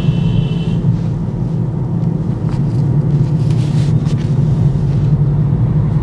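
Engine and road noise heard inside the cabin of a Skoda automatic car as it moves off gently on the accelerator and drives along the street: a steady low hum. A brief high-pitched tone sounds in the first second.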